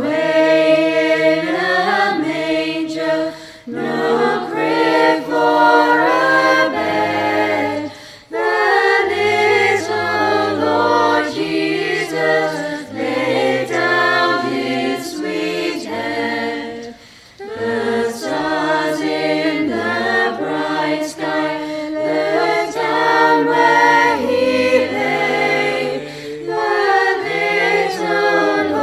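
A choir singing in phrases, with short breaths between them about 4, 8 and 17 seconds in.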